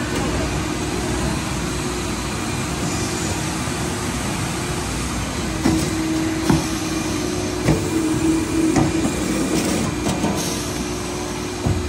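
Blow-fill-seal trim-die machine running: a steady mechanical hum with a constant tone, with a handful of sharp knocks from about halfway through.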